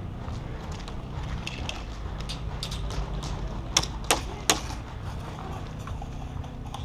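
Three sharp cracks about a third of a second apart, a little past halfway: airsoft gun shots. Lighter scattered clicks and taps and a low steady hum run underneath.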